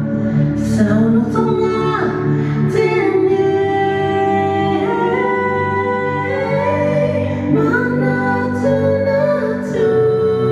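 Slow music for a dance routine: long held notes, probably with a female voice, and a few sharp percussive hits.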